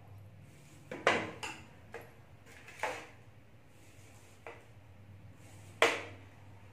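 A vegetable peeler scraping strips of skin off a large cucumber in separate short strokes, the loudest about a second in and near six seconds.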